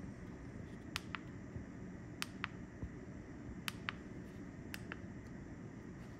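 Buttons on a small key-fob remote clicking four times, about a second apart, each a quick double click of press and release, over a steady low hum.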